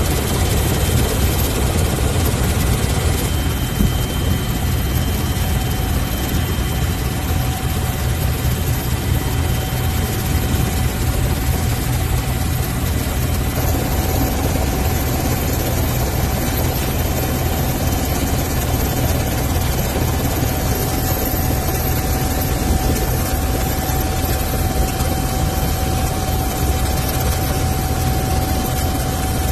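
Helicopter engine and rotor running steadily in flight, a constant loud drone heavy in the bass.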